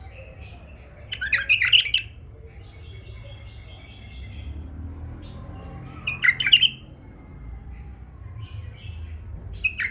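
Male bulbul singing: three loud, short, bubbling phrases about four seconds apart, near the start, in the middle and at the end, with a softer warble between the first two.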